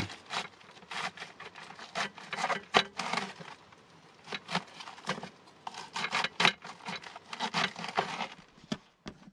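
Kitchen knife cutting through a cabbage and then mushroom stems on a cutting board: a run of short, irregular chopping strokes and knocks on the board, stopping just before the end.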